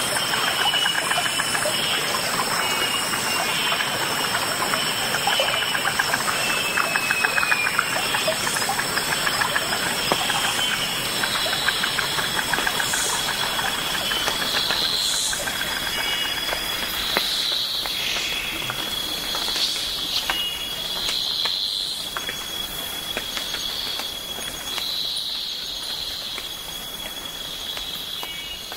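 Steady outdoor background noise with high, steady, insect-like tones; from about halfway through, short high chirps repeat every second or two.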